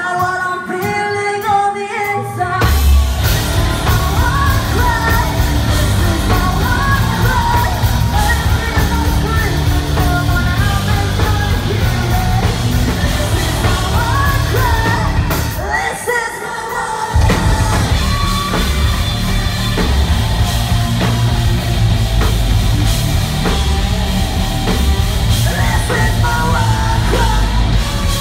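Live rock band: a woman singing over distorted electric guitars, bass and a drum kit. The full band comes in hard a couple of seconds in, briefly drops out about halfway through, leaving mostly the voice, then crashes back in.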